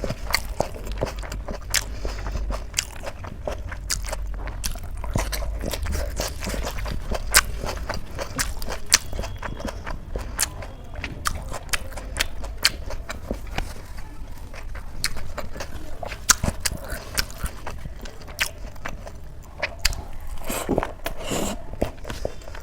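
Close-up eating sounds: chewing and biting a mouthful of chole and rice, with many short wet clicks and crunchy crackles.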